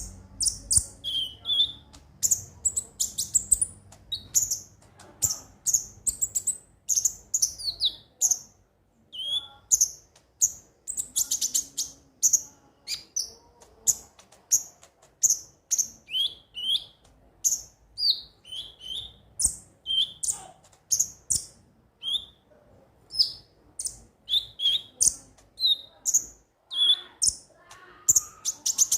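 Konin (kolibri ninja) sunbird singing: a rapid run of sharp, high-pitched chirps and short descending trills, several notes a second, kept up without a break.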